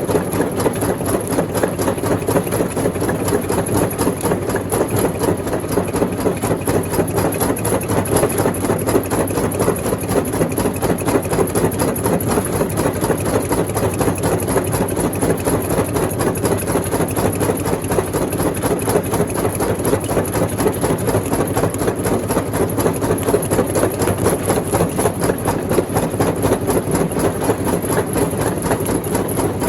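Rock crushing machinery running steadily with a fast, even mechanical pulse and no distinct separate impacts.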